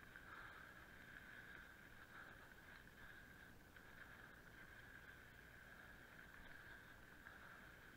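Near silence: only a faint, steady high hum, with no distinct knocks or events.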